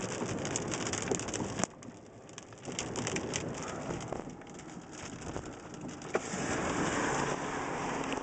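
Rain falling hard, with many sharp drops striking close by. It eases about two seconds in and grows heavier again near the end.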